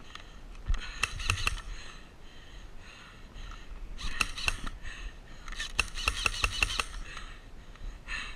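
Airsoft guns firing in several short bursts of rapid clicks, about a second, four seconds and six seconds in.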